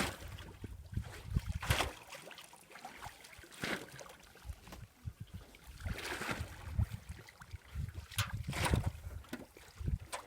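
Water sloshing and splashing in irregular bursts, with wind rumbling on the microphone.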